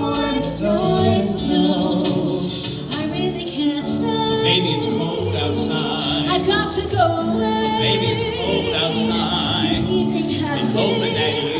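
Christmas song with several voices singing held notes over instrumental accompaniment.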